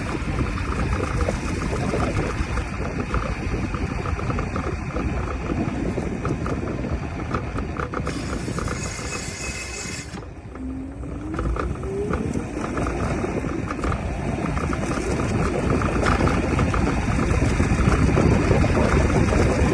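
Isinwheel X3 Pro electric scooter being ridden, with wind and road rumble and a fast repeated clicking from the rear wheel area, the unwanted noise the owner is chasing. About halfway through it slows briefly, then a rising motor whine as it picks up speed again.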